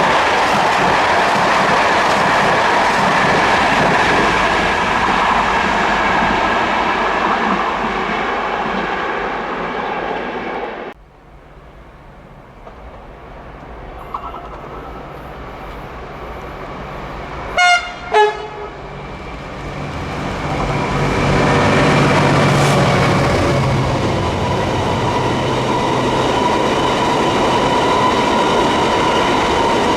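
A train passing at speed on the main line, its wheels clattering over the rail joints, until the sound cuts off sharply partway through. A train horn then sounds two short blasts, the second lower, and another train approaches and passes loudly.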